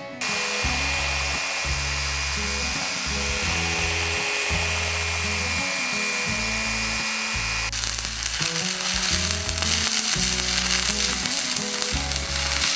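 Festool Rotex RO 150 FEQ random-orbital sander running steadily on the rusted steel plough disc, with a steady high whine. About eight seconds in it gives way to a harsher, hissier grinder grinding the steel and throwing sparks. Music plays underneath.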